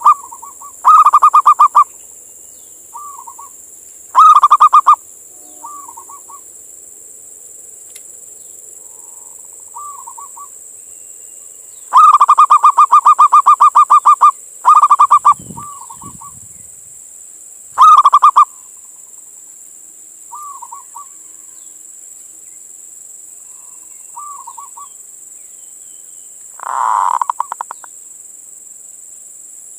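Male zebra dove (perkutut) giving its staccato cooing call. There are several loud bursts of rapid stuttering notes, the longest about two seconds, with quieter short coos in the gaps between them.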